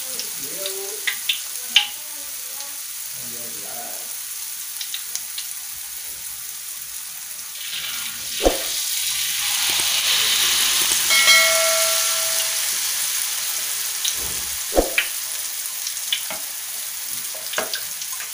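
Hot cooking oil sizzling steadily in a wok as peanut-cracker batter fries. The sizzle swells louder about eight seconds in, when a ladle of batter is poured into the oil, and there are a few sharp taps of a utensil against the wok.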